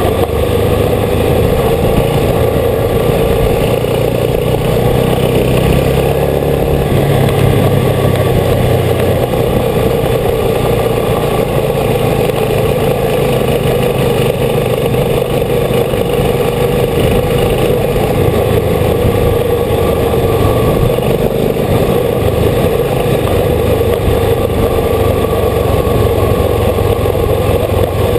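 Old motorcycle engine running steadily while under way, heard from the bike itself.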